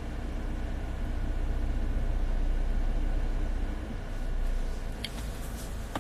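Steady low rumble inside a car cabin, easing off about four seconds in, with one short sharp click about a second later.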